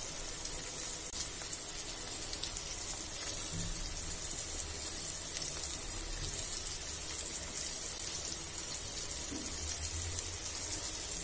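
Steady sizzling of tomato slices and halved boiled eggs frying in butter in a nonstick pan.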